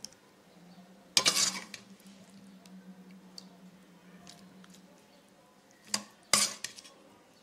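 A serving spoon clinking and scraping against bowls as curry is spooned from a pot into a small serving bowl, in two short bursts about five seconds apart, over a faint steady low hum.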